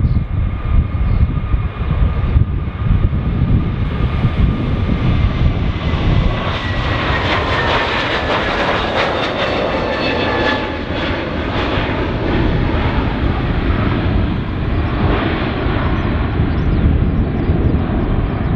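Airbus A321neo's twin turbofan engines at takeoff thrust as it lifts off and climbs away: a steady deep rumble, with fan whines that slide down in pitch about halfway through as the jet passes.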